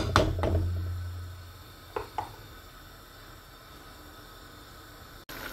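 A wooden spoon knocking and scraping against a pan a few times in the first half second, two lighter taps around two seconds in, then a faint steady hiss from a pot of rice in stock heating on the hob.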